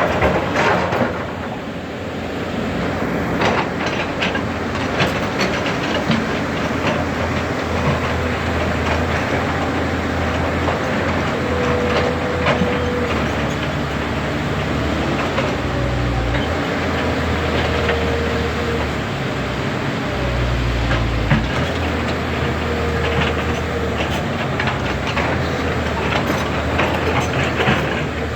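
Heavy machinery working: a diesel engine running with a deep hum that rises and falls under load, with scattered metallic clanks and a few short whines.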